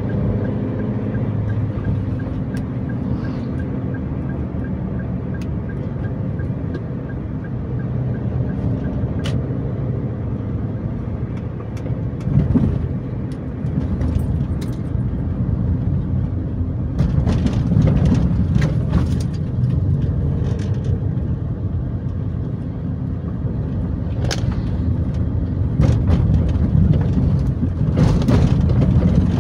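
Road noise heard inside a moving car: a steady low rumble of engine and tyres. It grows louder and rougher in two stretches over the second half.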